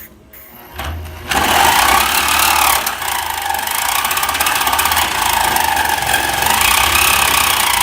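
A power tool starts up about a second in and keeps running loud and steady, with a fast rattling rhythm and a pitch that wavers as the load changes.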